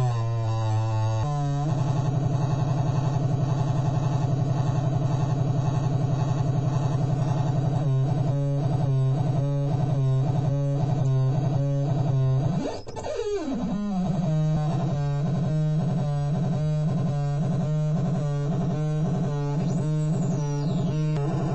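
Homemade electronic noise synthesizer circuit putting out a buzzy, distorted drone as its knobs are turned. The pitch wobbles briefly, then holds steady. From about eight seconds in it pulses at about three beats a second, with a sharp downward swoop near the middle.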